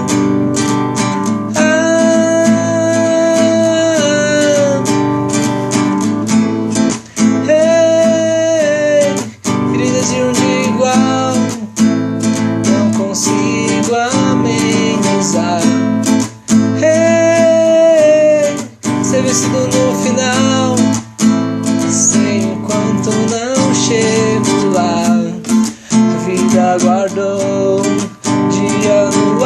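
Song music with acoustic guitar strumming under a held, bending melody line, broken by several short full stops of the band.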